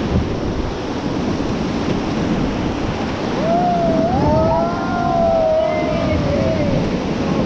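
Rushing river rapids, a loud steady roar of white water, with wind buffeting the microphone. About halfway through, several voices let out long rising and falling whoops for a few seconds.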